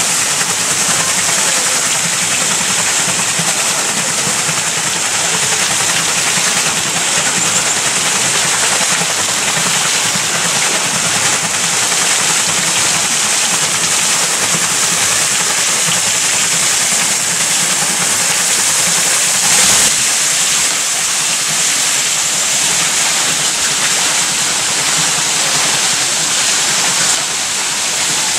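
Water splashing and pouring off the buckets of a large wooden water wheel as it turns, a loud, steady splashing without a beat.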